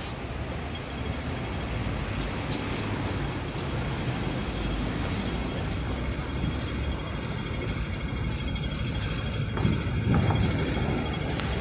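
Busy city street traffic: cars and buses running past, with a louder vehicle passing about ten seconds in.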